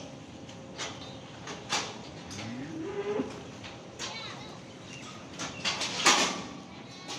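Holstein dairy cow mooing once, a short low call that rises in pitch, about two and a half seconds in. Scattered knocks and rustles come from the cows feeding at the metal barrier, the loudest just after six seconds.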